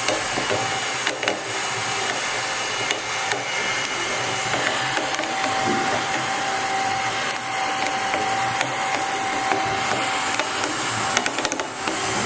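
Failing electric agitator motor running with a harsh, irregular grinding crackle and rattle from its bearing, which sounds like the output bearing cage has broken up. A steady whine comes in for a few seconds in the middle.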